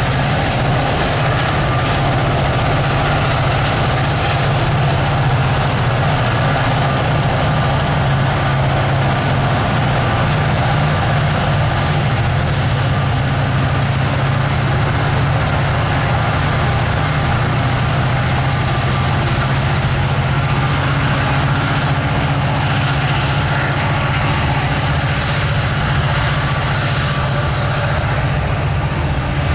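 Two Union Pacific four-axle diesel locomotives running with a steady low drone as they move a string of covered hopper cars and boxcars slowly past, the freight cars rolling along the rails.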